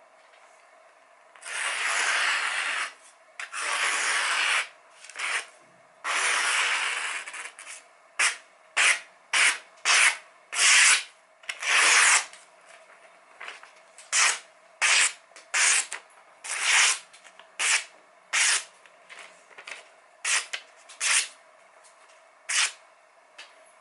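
A printed paper sheet being sliced with the edge of a Masamoto santoku kitchen knife in a paper-cutting sharpness test. First come three longer slicing strokes, then around twenty short, quick cuts about half a second apart as the sheet is cut into smaller pieces.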